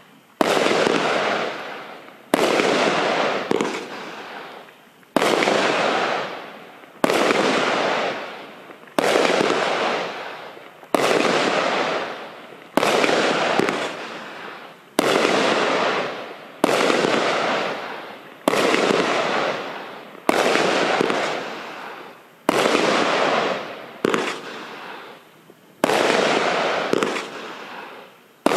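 A 19-shot, 30 mm-tube firework cake (Cube Fireworks GW633 Midnight Storm) firing a shot about every two seconds. Each shot is a sudden bang that fades away over a second or two.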